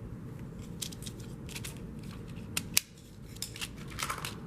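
Wolverine film digitizer rewinding a reel of 8mm film: a steady low machine rumble with a run of sharp little clicks and snaps. The loudest click comes near three seconds in, and the rumble drops for a moment just after it.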